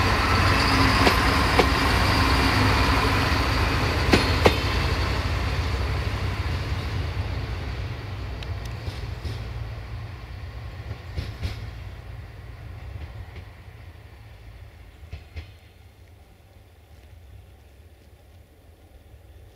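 Siemens Desiro diesel multiple unit passing close, its low engine rumble and running noise joined by a few sharp wheel clicks. The sound fades steadily as the train pulls away into the distance.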